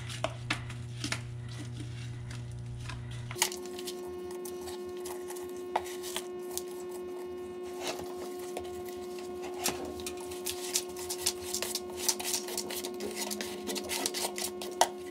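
Irregular scrapes, clicks and knocks as gloved hands scrape hardened bilge muck out of a shop vac drum into a plastic bucket. A steady hum runs underneath and shifts to a higher pitch about three seconds in.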